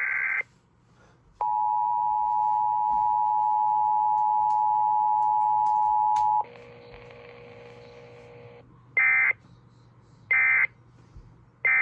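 Emergency Alert System test tones broadcast over radio. The tail of a screechy data burst ends a moment in. After a second of quiet comes the steady two-tone attention signal, held for about five seconds, then a fainter steady tone for about two seconds. Three short screechy end-of-message data bursts follow, about 1.3 s apart.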